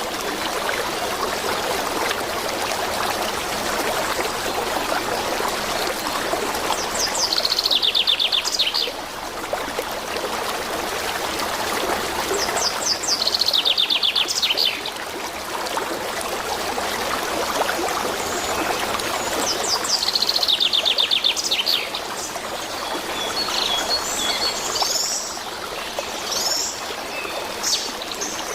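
Canary singing: three fast trills of rapidly repeated high notes, each falling in pitch, followed by scattered short chirps near the end. A steady rushing noise, like running water, carries on underneath.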